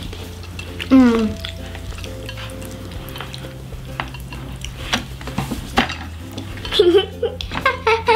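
Chewing and crunching of crispy tater tots: a string of small crackly clicks, with a short hum of a voice about a second in.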